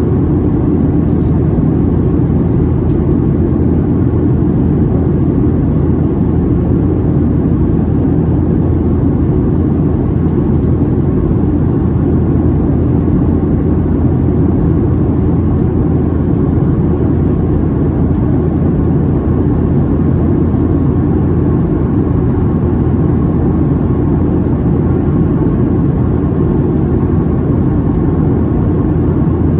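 Steady cabin noise inside a Boeing 737-700 in flight: an even, low rumble of engines and rushing air with a constant hum, unchanging throughout.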